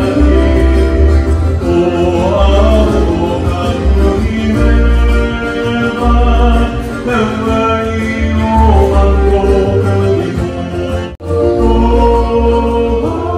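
Live Hawaiian song for a hula show: a man singing through a microphone and PA loudspeakers over backing music with a heavy, regular bass. The sound cuts out for an instant about eleven seconds in.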